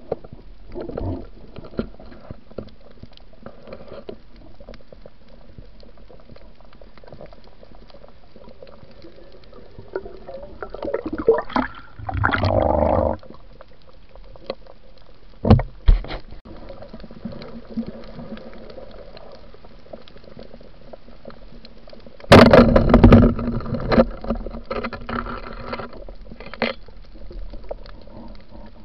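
Muffled underwater sound through a waterproof camera housing: a steady low wash of water with scattered clicks. Louder bursts of rushing, bubbling water come about eleven seconds in and, loudest, about twenty-two seconds in.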